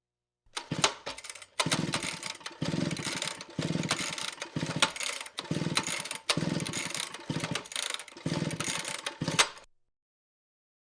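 Chainsaw running in repeated surges, about one a second, cutting off suddenly about nine and a half seconds in.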